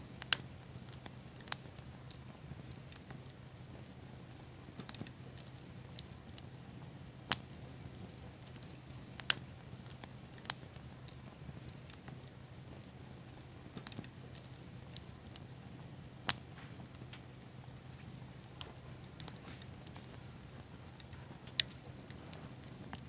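Small fire of pine cones and seed pods burning, crackling with sharp, irregularly spaced pops over a faint steady hiss and low hum.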